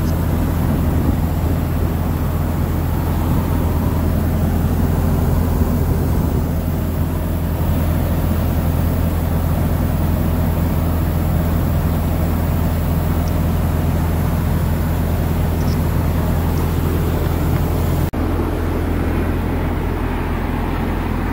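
Steady low engine hum under an even hiss of compressed air as a semi-truck tire is aired up through a dial inflator gauge on its valve. The hiss drops away abruptly near the end.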